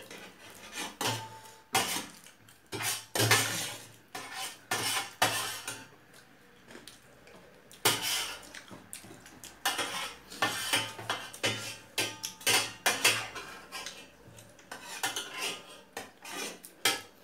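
Metal spoons scraping and clinking against metal dinner plates as people eat, in irregular clusters of sharp clicks with a quieter pause about halfway through.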